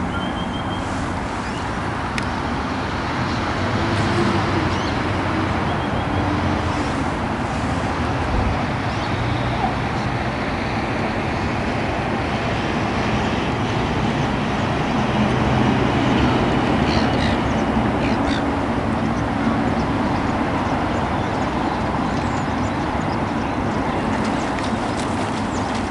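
Steady road traffic noise, with engine hum rising and falling as vehicles pass.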